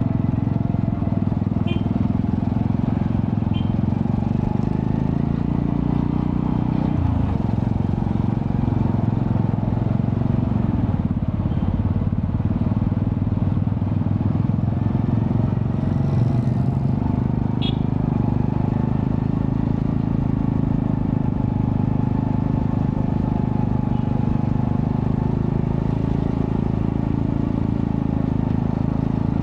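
Honda Astrea Prima streetcub's 110cc four-stroke single-cylinder engine running through a custom underbelly exhaust with resonator, its note shifting in pitch as the revs change, most clearly about seven seconds in.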